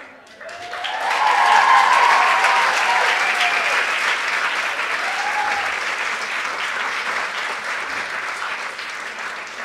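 Theatre audience applauding, swelling up about half a second in, with a few voices cheering over it in the first few seconds; the clapping then slowly dies away.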